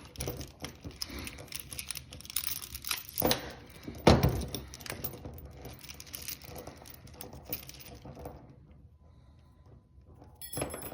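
Steel chain and padlocks clinking and rattling as they are handled, with scattered small clicks and knocks, one louder knock about four seconds in. The noise dies down for a couple of seconds near the end.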